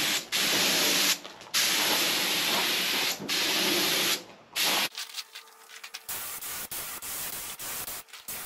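Compressed-air cup spray gun spraying clear coat onto a wooden beam: a loud hiss in several trigger bursts of about a second each, with short breaks between. About five seconds in, the hiss turns quieter and rougher.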